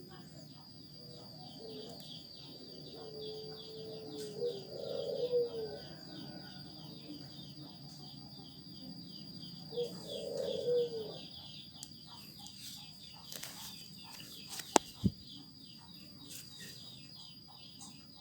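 Crayon rubbing on paper in rapid, even colouring strokes, with a steady high whine under it. A dove coos twice in the background, and two sharp clicks come near the end.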